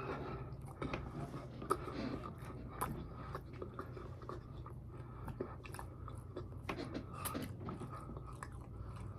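Close-miked eating of chicken wings: biting and chewing with irregular crunches and small wet clicks, over a low steady hum.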